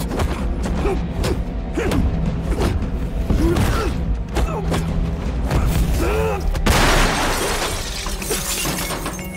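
Film fight sound effects: a quick run of punch and block impacts with the fighters' grunts over a music score, then a sudden crash of shattering about seven seconds in that lasts a couple of seconds.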